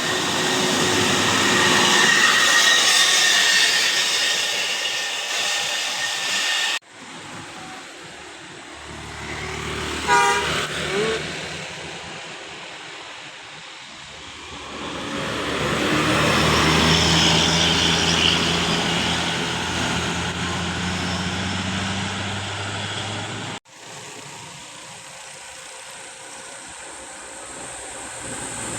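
Large buses passing on a road, their engine and tyre noise swelling and fading, with a short loud pitched blast about ten seconds in. The sound breaks off abruptly twice.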